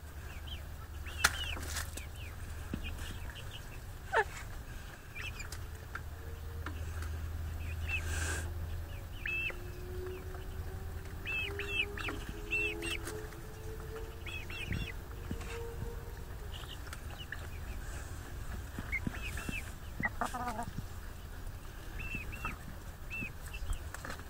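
Domestic hens clucking and chirping softly as they feed, with a few sharp taps and a longer drawn-out call midway.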